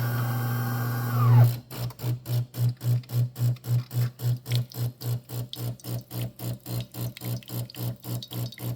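DeLonghi Magnifica Evo espresso machine running a cleaning cycle: a steady machine hum with a motor whine that winds down about a second and a half in, then the water pump pulsing on and off about three to four times a second.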